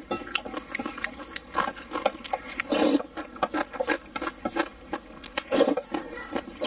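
Close-miked mouth sounds of slurping and chewing hot dry noodles in sesame sauce: a steady run of wet smacks and clicks, with louder slurps about three seconds in and again about five and a half seconds in.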